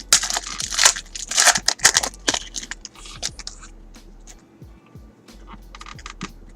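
Trading cards being handled, with rustling and crinkling for about the first three and a half seconds, then quieter under faint background music.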